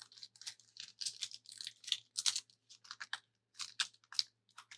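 Trading card pack wrapper being torn and worked open by hand: a run of irregular crinkling, crackling rustles.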